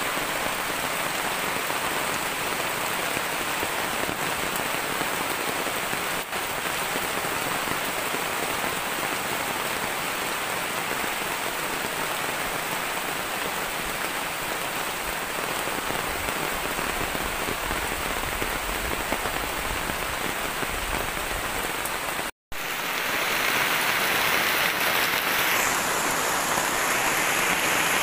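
Heavy rain falling steadily, pattering on the flysheet tarp overhead and the forest around. There is a brief gap about three-quarters of the way through, after which the rain is louder.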